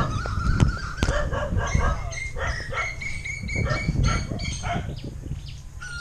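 Dogs barking repeatedly, many short barks one after another.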